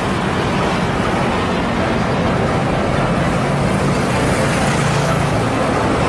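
Fuel tanker truck, a UD Trucks Quester, driving on a road: its engine running steadily under even road and traffic noise.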